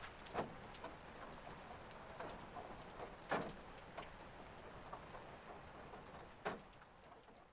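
Scattered light clicks and taps of steel reinforcing bar being handled and tied at its crossings, with three sharper clicks near the start, midway and near the end, over a steady hiss.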